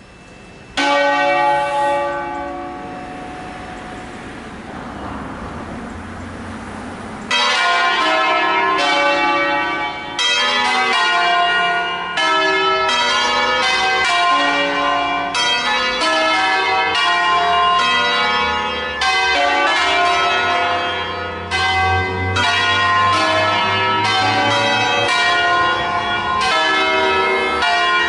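Six church bells cast by Crespi of Crema in 1885, a ring in a slightly sharp D-flat, swung and rung in a funeral peal (concerto funebre). A single stroke about a second in rings and slowly dies away. From about seven seconds in, the bells strike in quick succession, each stroke overlapping the ringing of the last.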